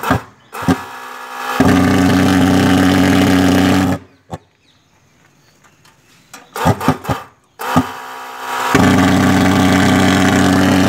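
IZ-Fog portable thermal fogger's pulse-jet engine started twice: each time clicks and a short softer start-up sound, then a loud steady drone that runs for about two and a half seconds and cuts off suddenly.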